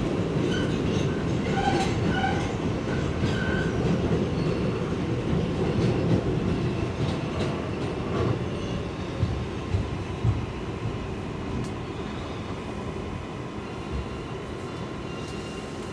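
Subway train running in an R188 car, a dense rumble with wheel-on-rail clatter that fades steadily as the train slows into a station. There are a few short wheel squeals in the first few seconds and a thin steady whine in the second half.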